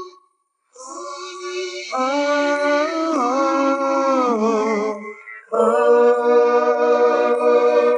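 Wordless sung vocals from an isolated vocal track. Held notes come in about a second in, step up, then bend and slide down. After a short break near the middle, several voices hold a layered harmony.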